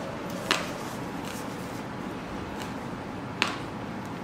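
Quiet eating sounds from a man eating rice with his fingers: two small soft clicks, about half a second in and near the end, over a steady low hiss.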